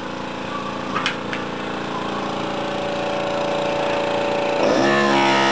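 Gison GPW-4500 pneumatic air hammer (4500 blows per minute) running steadily as it chips ceramic tiles off, a continuous mechanical buzz with two sharp clicks about a second in. Near the end its pitch dips briefly and it grows louder.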